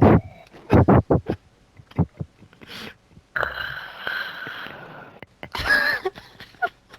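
Men laughing hard and out of breath: a quick run of laughter bursts about a second in, a long high wheezing laugh in the middle, and another burst near the end.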